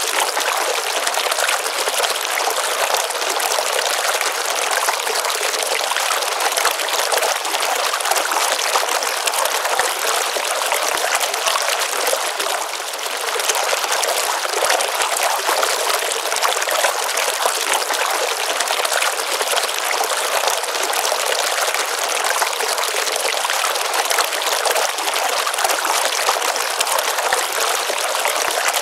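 Small pond stream: water trickling and pouring steadily, with a fine splashing texture.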